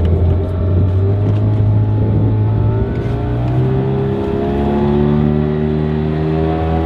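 A small fishing boat's motor running under way, then speeding up about three seconds in, its pitch rising and holding higher.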